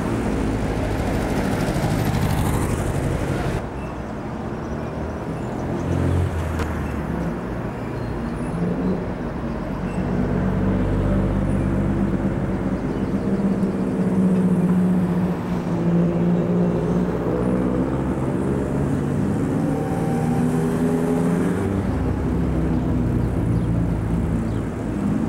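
Road traffic: motor vehicle engines running and passing, with an engine note that rises and falls through the middle stretch.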